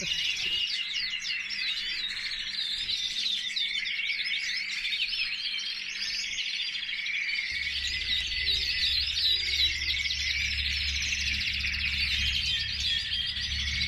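Many caged canaries singing at once, a continuous dense chorus of fast trills and chirps. A steady low hum comes in about halfway through.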